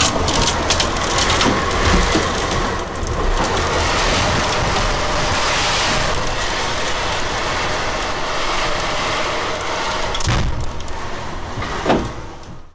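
Tornado winds and driving rain heard from behind a window pane: a loud, steady roar of wind and rain with scattered knocks and rattles, mostly in the first couple of seconds and again near the end. The sound cuts off suddenly at the very end.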